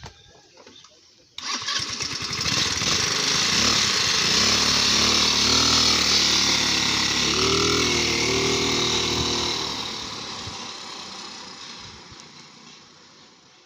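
A 125 cc scooter engine, just repaired of hard starting, catches suddenly about a second and a half in and runs, its pitch rising as it is revved around the middle, then fades out toward the end.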